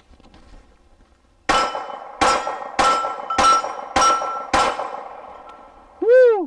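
Six pistol shots from a Glock 42 firing .380 ACP, about two-thirds of a second apart, each followed by the ringing of a struck steel target plate.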